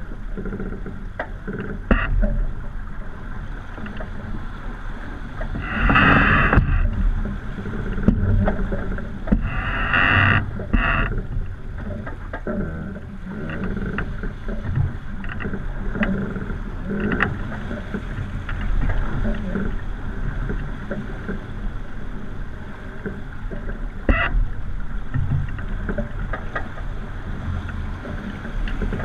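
Sailboat under sail in rough water: a constant rush of water along the hull and wind rumble, with several louder rushes of spray and waves, about 6, 10 and 24 seconds in.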